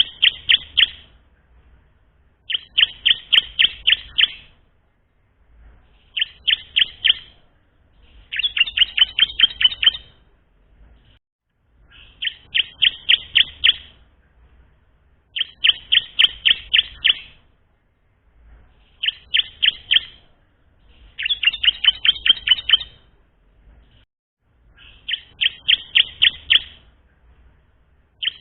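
Bar-winged prinia (ciblek) singing in repeated phrases. Each phrase is a quick run of sharp, high notes lasting about two seconds, and the phrases come about every three seconds. It is a bird still learning its song.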